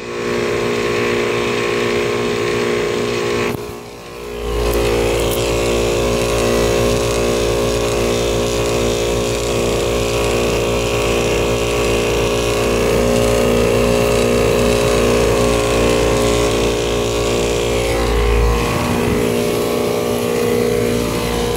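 Outdoor central air-conditioner condenser (a 2004 Payne unit) running with a steady humming drone and a rattling racket that the owner puts down to a failing compressor. The level dips briefly about four seconds in, then comes back with a heavier low rumble.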